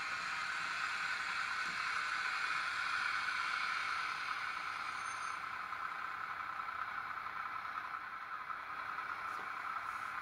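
Sound-fitted Bachmann OO-gauge model of a Windhoff MPV running slowly along the track, giving off a steady, even hum that eases a little about halfway through.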